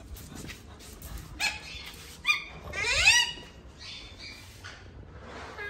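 Pug whining in a few short, high cries; the loudest, about three seconds in, dips and then rises in pitch.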